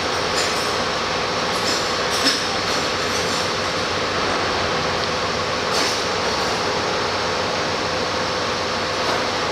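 Steady, loud machinery noise with a faint hum running under it, broken by a few short light clicks and knocks, the sharpest about two seconds in.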